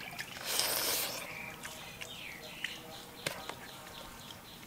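A man eating curried duck by hand: a loud sucking slurp at the meat about half a second in, then chewing with a couple of sharp lip smacks a little past three seconds. Birds chirp in the background in a run of short falling calls.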